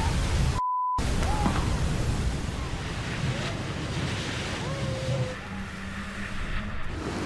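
Seawater crashing and rushing across a crab boat's deck as a wave breaks over it in a gale, with wind, loudest at the start and easing off. A short censor bleep cuts in about half a second in.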